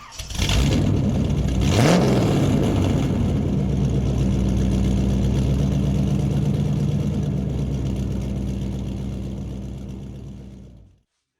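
Mini wedge race car engine running loud, revving up briefly about two seconds in, then holding a steady pitch before fading and cutting off near the end.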